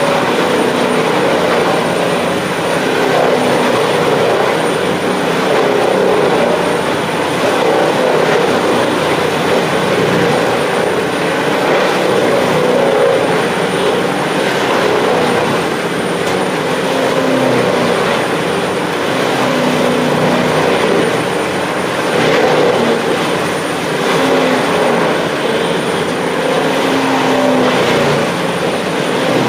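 Vermeer TG5000 tub grinder's diesel engine running loudly under load while it shreds palm tree trunks, a steady drone whose pitch wavers slightly as the load changes.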